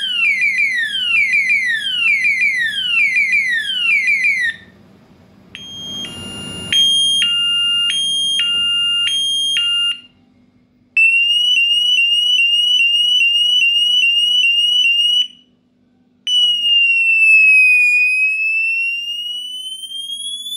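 Electronic siren module running through its alarm tones, with short gaps between them. First come repeated falling sweeps. About five seconds in it switches to a two-tone hi-lo alternation, changing about twice a second. From about eleven seconds it plays quick rising chirps, and from about sixteen seconds a slow wail that falls, then climbs.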